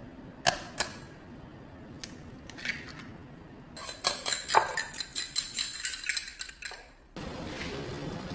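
An egg is tapped and cracked on the rim of a small glass bowl. Then a metal fork beats the egg in the bowl, with rapid clinks of fork on glass at about four a second. Near the end it cuts to the steady hiss of a pot of boiling water.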